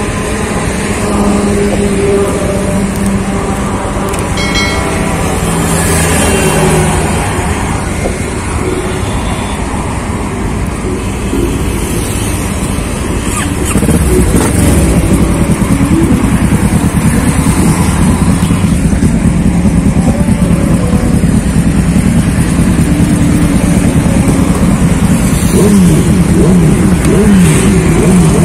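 Motorcycle engines idling. About halfway through, the engine under the rider gets suddenly louder and keeps running as the bike pulls away. Near the end it revs up and down several times as it accelerates through the gears.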